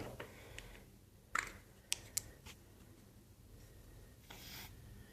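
Quiet handling noises: a few light clicks and taps as a bowl, utensil and detergent bottle are handled, with a brief soft rustle near the end.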